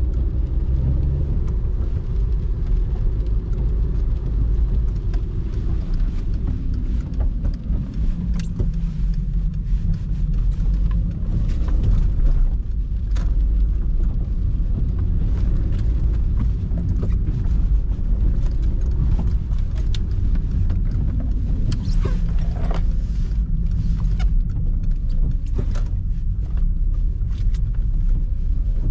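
2006 Volkswagen Polo 1.4 on the move, heard from inside the cabin: a steady engine drone and road rumble, with scattered small knocks and ticks.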